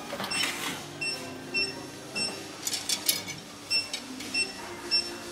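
Workshop machinery background: a steady low hum with a short high electronic beep repeating every half second or so, and a quick run of clicks about three seconds in.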